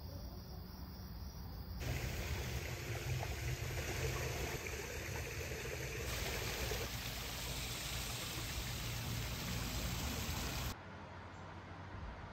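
Steady rush of running water, as from a backyard pool's rock waterfall, that changes in level at each cut. It drops to quiet indoor room tone about eleven seconds in.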